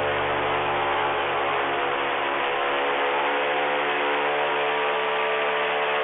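Airboat engine and propeller running steadily under way, a loud drone whose lowest notes waver between about one and three seconds in.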